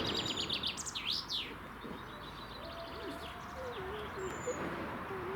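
Songbird singing: a rapid run of high, quick notes in the first second, then a couple of fast rising and falling notes, and another short trill about three seconds in.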